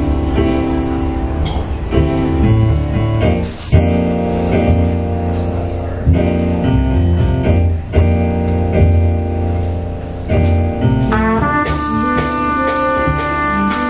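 A small jazz group playing straight-ahead jazz live: a saxophone leads over bass and drums, and a trumpet comes in with bright held notes about eleven seconds in.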